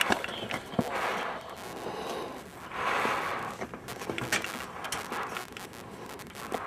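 Handling noise from a handheld camera: scattered sharp clicks and rubbing, with two soft rushes of air about one and three seconds in.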